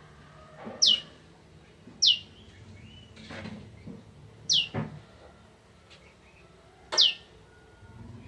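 A prenjak (prinia) giving short, sharp calls that slide downward in pitch, four in a row spaced one to two and a half seconds apart. Soft low knocks come between the calls.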